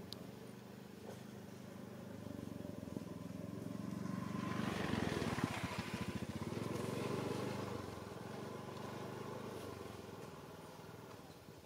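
A motor vehicle driving past: its engine sound swells over a few seconds, is loudest about halfway through, then fades away.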